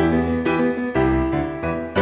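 Background music led by a keyboard instrument, with new notes and chords struck about every half second.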